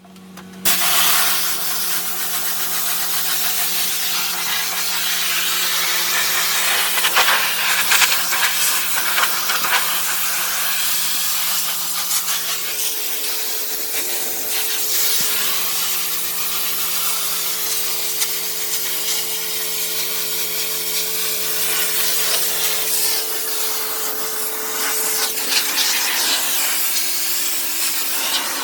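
Pressure washer spraying concrete: a steady loud hiss of the water jet over the machine's steady hum. It starts abruptly just under a second in.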